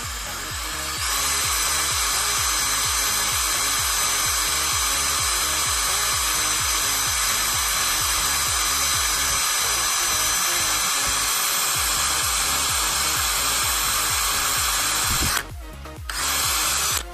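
An 18-volt cordless drill runs steadily with its bit grinding into an iPhone's screen glass. It picks up about a second in, stops briefly near the end, runs again for a moment and stops. Background music with a steady beat plays underneath.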